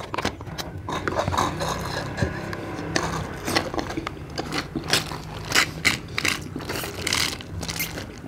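Two small cardboard juice cartons crackling and crumpling as they collapse while being sucked empty through straws, with sucking noises from the straws: a rapid, irregular crackle.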